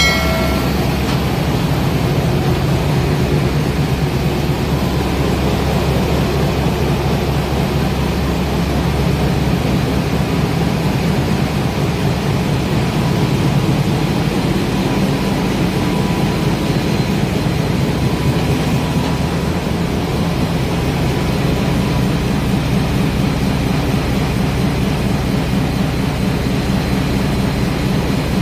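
Large marine diesel generator engines running in a ship's engine room: a loud, steady, deep drone with a fast, even throb. A faint thin whine comes in around the middle and holds steady.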